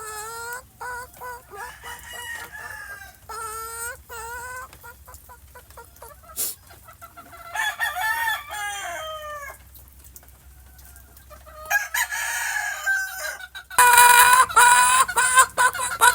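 A hen calling in a run of short, pitched clucks and falling calls, ending in a louder, harsher squawking stretch over the last few seconds.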